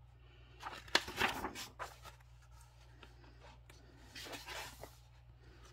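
Paper pages of a coloring book being turned: a rustle with a sharp snap about a second in, and a second rustle about four seconds in, over a faint steady low hum.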